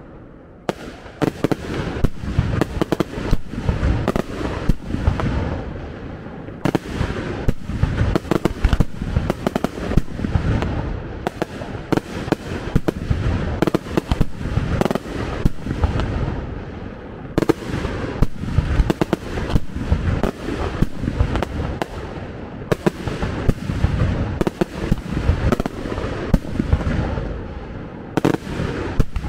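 Fireworks display: a dense barrage of loud bangs and crackling, several a second, coming in waves, with fresh volleys breaking out about 7, 17 and 23 seconds in.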